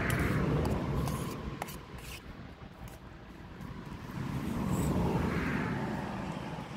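Vehicles passing on a road, two swelling and fading by in turn, with a few faint clicks in between.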